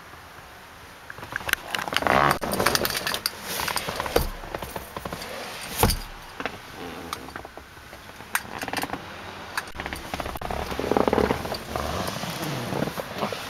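Handling noise as someone moves about in a pickup truck's rear seat: rustling and scattered clicks, with one heavier knock about six seconds in.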